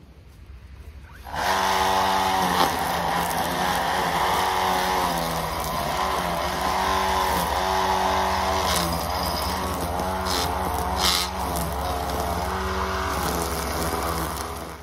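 Handheld power trimmer cutting back weeds around the base of a tree tube. The motor starts suddenly about a second and a half in and runs with a steady whine. Its pitch dips and recovers again and again as it bogs in the vegetation, and it cuts off at the end.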